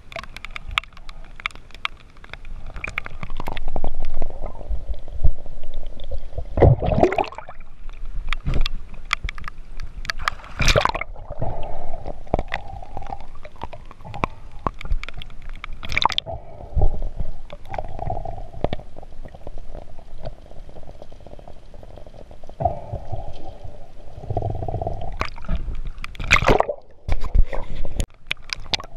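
Water splashing and gurgling around a hand-held action camera as it dips in and out of the water, with irregular sharp splashes and stretches of muffled underwater noise.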